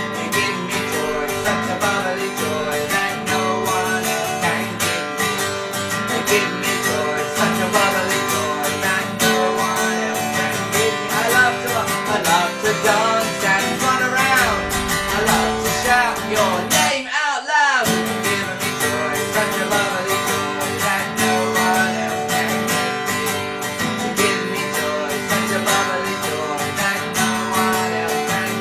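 Yamaha acoustic guitar strummed in a steady rhythm, accompanying a man and a woman singing a children's action song.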